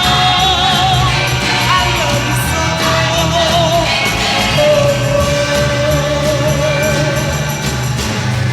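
1967 mono soul record: a dense full band and orchestra with long held notes sung with vibrato.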